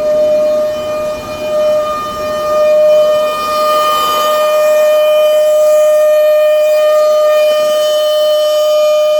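Compressor on a 2016 DAF XF 440 truck giving a loud, steady whine at one unchanging pitch. A low rumble beneath it dies away about halfway through.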